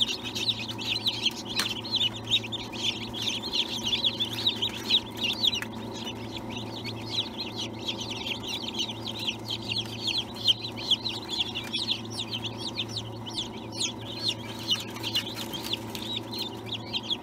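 A crowd of newly hatched chicks peeping continuously, many short, rapid, high chirps overlapping, over a steady low hum.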